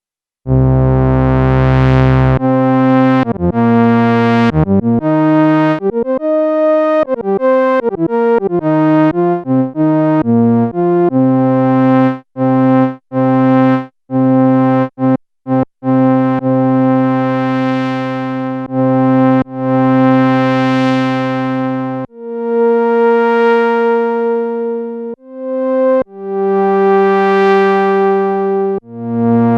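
Korg monologue monophonic analog synthesizer playing a factory preset, one note at a time with a bright, buzzy tone. After half a second of silence it holds a low note, runs quickly through a string of short notes, then settles into longer held notes with brief breaks.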